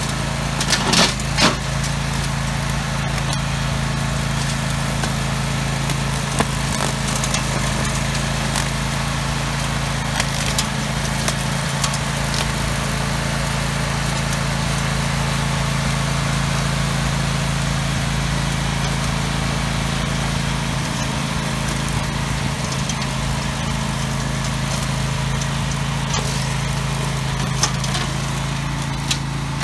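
Grillo Climber 9.22 ride-on brush mower running steadily at working speed as it cuts through tall weeds, its engine giving an even, unchanging hum. A few sharp clicks sound over it, the loudest about a second in.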